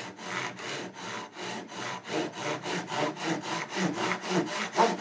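Japanese pull saw crosscutting a timber beam: a steady run of rasping strokes that quicken from about two and a half to about four a second partway through.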